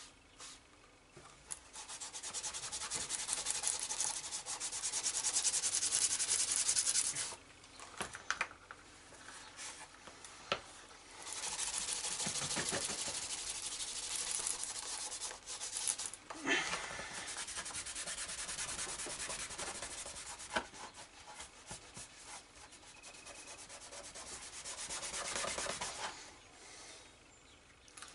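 Cloth rubbed briskly back and forth along the edge of a wet-formed leather pouch flap, buffing the edge. There are three long spells of fast rubbing strokes, about a second in, midway and after that, with short pauses between.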